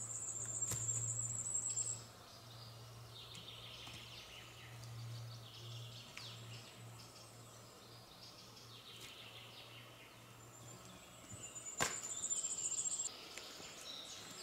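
Forest ambience of songbirds chirping, with a high, buzzing trill in the first two seconds and again near the end. A sharp click or knock comes a little before the second trill.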